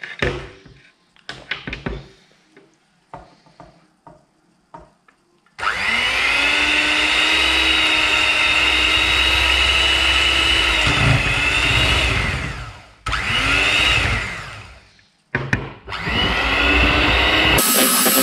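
A few light knocks and clatters, then an electric mixer starts about five and a half seconds in, whipping mascarpone with liquid cream. It runs steadily, stops and restarts twice, and switches to a different speed near the end.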